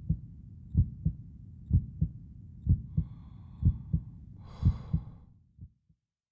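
Heartbeat sound effect: low double thumps (lub-dub) about once a second, fading out near the end, with a short rushing noise about four and a half seconds in.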